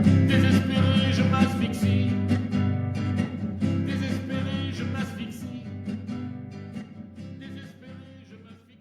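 Closing bars of a song: guitar-led music fading out steadily to silence.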